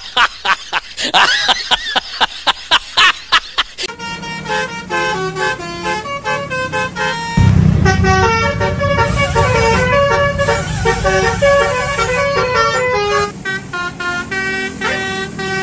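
Basuri telolet bus horn, a multi-tone horn, playing a tune of quick stepped notes. The first few seconds are rapid clicks and short gliding tones, and a low rumble joins about halfway through.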